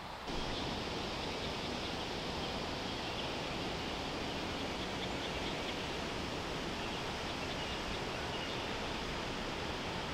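Steady outdoor background noise: an even rushing hiss with no distinct events. It gets a little louder just after the start.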